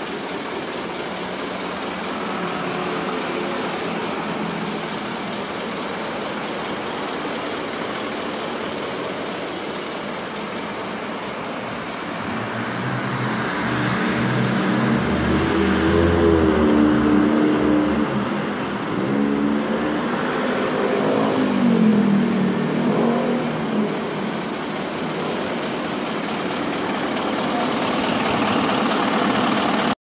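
Mitsubishi Fuso tractor head's 8M20 V8 diesel engine idling steadily, then revved up and let back down twice through the middle before settling back to a steady run.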